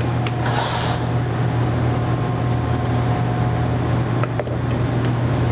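Steady low mechanical hum throughout. About half a second in there is a brief scrape as a metal spoon scoops watermelon sorbet from a food processor bowl into a glass.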